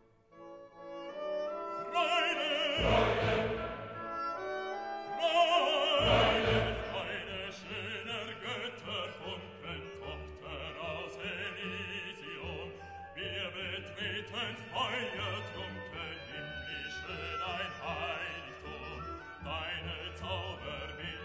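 Music: operatic singing with a strong vibrato over a classical orchestra, with heavy low accents coming in about three and six seconds in.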